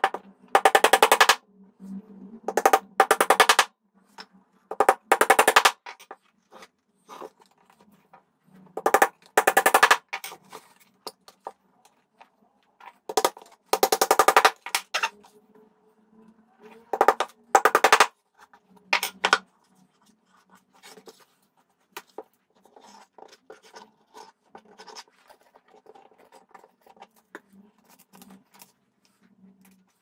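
A power tool's rapid mechanical rattle in about six separate bursts, each lasting up to a couple of seconds, with quieter pauses between them. Only faint sounds follow in the last third.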